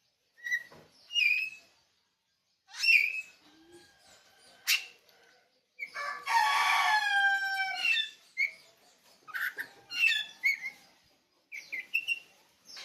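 Oriental magpie-robin singing in short separate phrases of whistles and chirps. About six seconds in comes a louder, two-second, crow-like call that falls in pitch at the end, like a rooster crowing.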